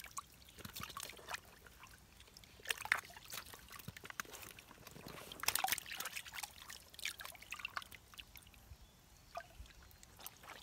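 Hands splashing and scooping in a shallow hole of muddy water, with irregular splashes and drips; the loudest splashes come about three seconds in and about five and a half seconds in.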